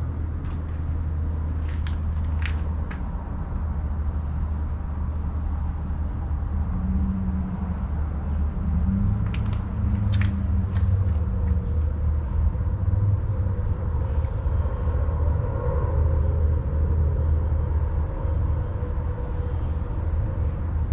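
Steady low outdoor rumble, with a few faint clicks near the start and about ten seconds in.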